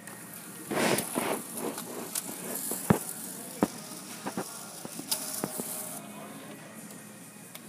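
HP OfficeJet 4650 inkjet printer's paper-feed mechanism pushing out a sheet as the printer shuts down: a short whirring rush about a second in, then a series of sharp mechanical clicks and knocks.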